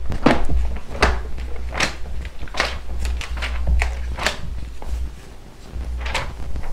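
Bible pages being turned by hand: a run of quick papery swishes, roughly one a second, with a short lull and one last flip near the end, over a low steady rumble.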